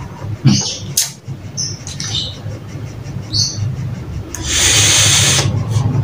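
Breathy hiss of a person drawing on and blowing out vapour from an e-cigarette, loudest for about a second some four and a half seconds in. Short high bird chirps come and go throughout, over a low steady hum.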